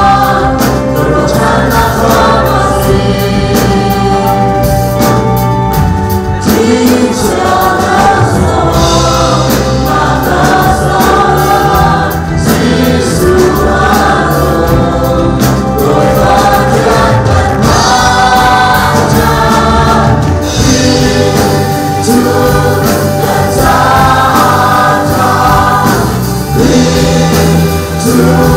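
Live gospel worship song: a band with drum kit, electric bass and electric guitar backs a group of singers, with the standing congregation singing along.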